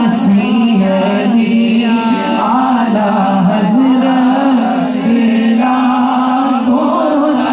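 Man singing a devotional Urdu salaam unaccompanied, in long held, slowly bending melodic lines.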